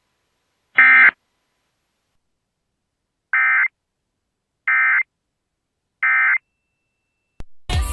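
Emergency Alert System end-of-message signal: three short digital data bursts, buzzy warbling tones, about 1.3 s apart, marking the end of the alert. A single similar burst comes about a second in. Near the end there is a click, then a sudden louder mixed sound.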